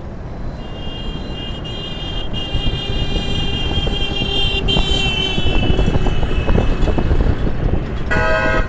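Road vehicle noise, a steady low rumble, with a high steady tone lasting several seconds. Near the end comes one short vehicle horn toot.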